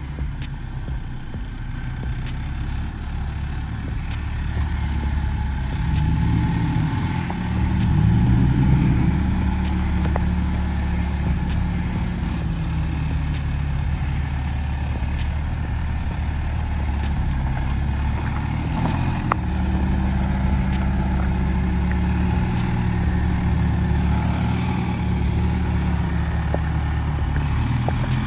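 2024 Toyota Tacoma TRD Off-Road pickup's engine running as the truck crawls over a rocky ledge. The engine speed rises and falls about six seconds in and again a little before twenty seconds.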